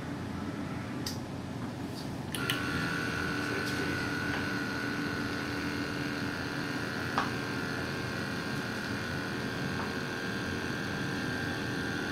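A few light clicks, then about two seconds in the Compresstome VF-300 vibrating microtome's drive starts and runs with a steady high whine over a lower hum; a single sharp click about seven seconds in.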